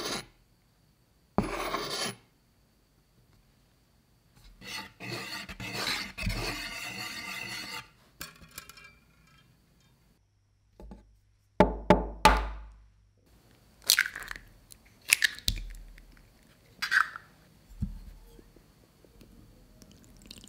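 Flour scraped with a spoon, then poured in a rustling stream into a ceramic plate for a few seconds. About halfway through, eggs are cracked against the plate: a few sharp loud taps, then the shells crackling as they are pulled apart, twice more.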